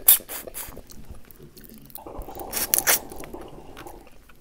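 Eating boiled crawfish: wet sucking and slurping clicks as the juice is sucked from a crawfish near the start, then crackling and snapping as the red shell is broken open and peeled, loudest about two and a half to three seconds in.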